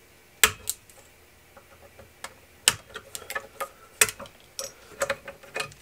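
Sharp plastic clicks and snaps, a few seconds apart and then several lighter, quicker ones near the end. The retaining clips of a Carling rocker power switch are being cut and the switch worked out of the power supply's metal front panel.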